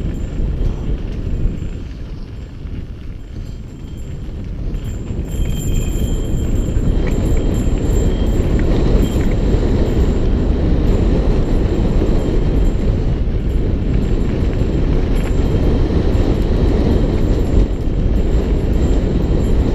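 Wind buffeting the camera microphone, mixed with tyre rumble and rattle from a mountain bike rolling fast down a dirt trail. It is a continuous low rumble that grows louder and steadier from about five seconds in as the bike picks up speed.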